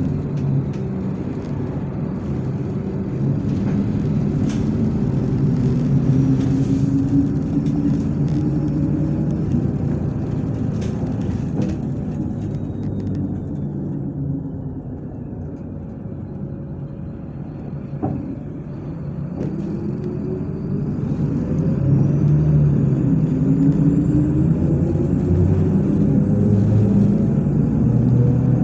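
MAZ-103 city bus heard from inside the cabin: the engine and drivetrain note falls as the bus slows down over the first half. A single click sounds a little after halfway, then the note climbs steadily as the bus pulls away and accelerates.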